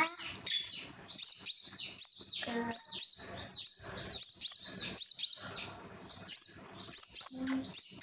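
Myna chick giving short, high, repeated begging chirps, a few times a second, as it gapes for food being offered on a spoon.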